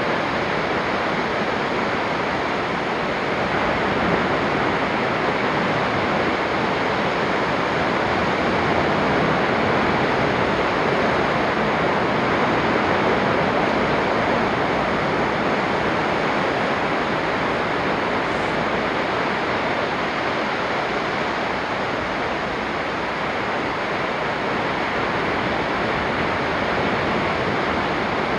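Surf on a sandy beach: a continuous wash of breaking waves, swelling and easing gently in loudness.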